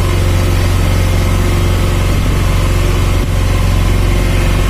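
Vehicle engine running steadily under way, with a low, even hum, heard from inside the moving vehicle. There is a brief dip about three seconds in.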